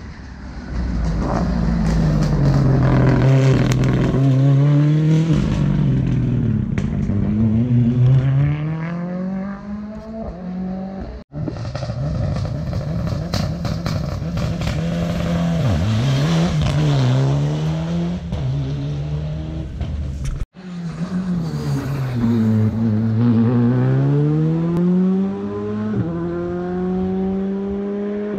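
Rally car engines at racing speed, revving hard through the gears. The pitch climbs, drops back at each shift or lift-off, then climbs again. There are three passes, each broken off abruptly by a cut.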